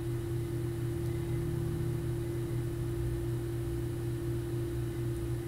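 Steady low hum with a constant tone and a faint hiss underneath.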